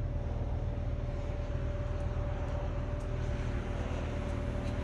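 Steady low mechanical hum with a constant whine above it.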